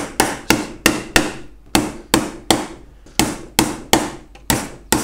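A hammer drives 2-inch lost-head nails into the wooden walls of a beehive brood box. About fourteen sharp blows come at roughly three a second, in short runs of two or three with brief pauses between, and each blow rings briefly.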